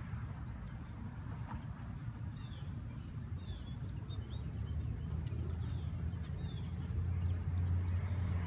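Low steady rumble of road traffic, swelling louder near the end, with scattered faint chirps of small birds and a couple of short high falling whistles.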